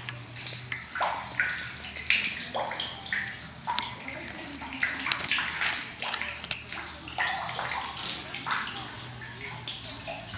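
Water trickling and splashing down a mossy stone face at a spring well, in an uneven, irregular patter.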